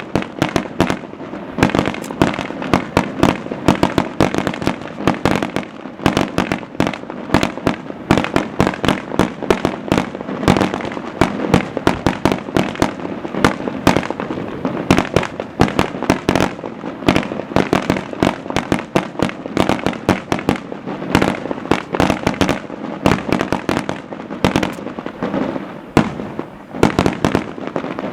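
Maltese festa fireworks going off in a dense, continuous barrage of sharp bangs and cracks, several a second without a break.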